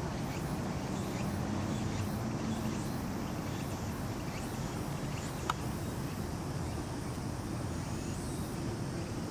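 Steady low background rumble of an outdoor recording, with one short click about five and a half seconds in.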